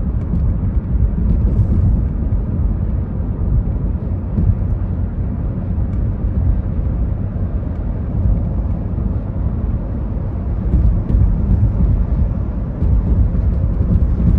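Steady low rumble of a car travelling at highway speed: road, tyre and wind noise, with no rain on the car.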